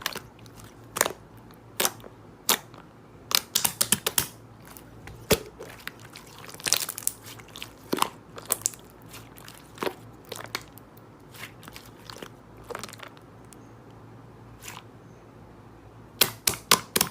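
Irregular sharp crunches and clicks, some in quick clusters, with a quieter stretch before a last burst of crunches near the end.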